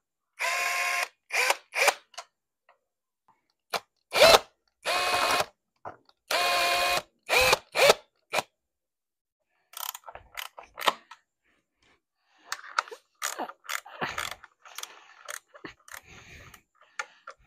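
Cordless power driver spinning bolts out of a motorcycle's plastic fairing in several short bursts of motor whine, each under a second. After about ten seconds come scattered light clicks and rattles of parts being handled.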